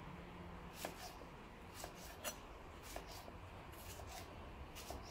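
Kitchen knife cutting tomato wedges on a wooden chopping board: a handful of light knocks as the blade meets the board, roughly one a second.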